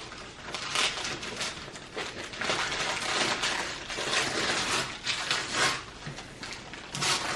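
Gift wrapping paper and packaging rustling, crinkling and tearing as a present is unwrapped, in irregular bursts.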